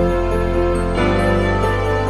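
Background music with sustained chords; the chord changes about a second in.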